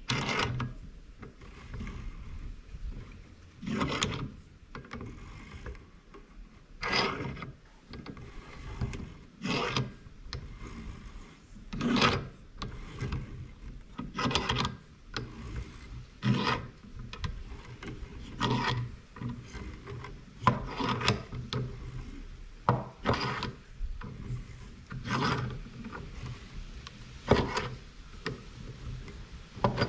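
Bench vise screw being turned by its sliding T-handle in repeated strokes: a short metallic scraping rub about every two seconds, as the vise is backed off to let the air gun's compressed mainspring out.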